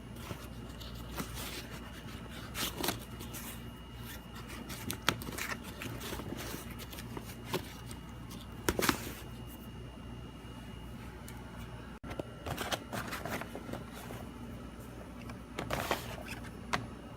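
Handling noises: irregular scraping, rustling and short knocks over a steady low hum, in a small room.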